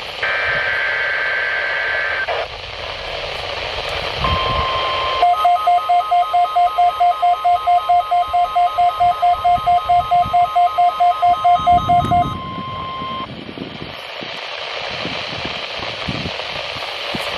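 NOAA Weather Radio weekly test alert off a weather radio receiver: a screechy burst of two-tone digital header data, then the steady 1050 Hz warning alarm tone held about nine seconds. Over most of the alarm tone a second tone beeps rapidly, about four beeps a second, and the signal drops to radio hiss at the end.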